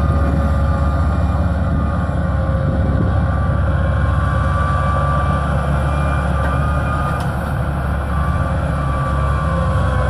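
Challenger tractor's diesel engine running steadily while pulling a 12-furrow plough, a low drone with a steady whine over it.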